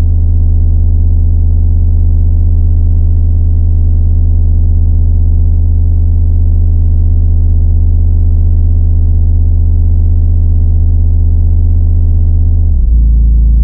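A loud, deep, steady electronic drone tone. Near the end it slides down to an even deeper steady tone.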